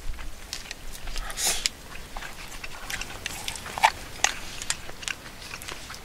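Wooden chopsticks clicking and scraping against a metal camping cup as the last rice and sauce are scooped out and eaten. The clicks come irregularly, several a second, with a longer scrape about a second and a half in.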